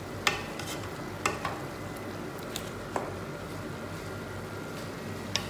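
Wooden spatula stirring chicken pieces with shallots and coconut in a non-stick pot, with a handful of light knocks and scrapes against the pot. Under it runs a soft steady sizzle from the pot on the flame.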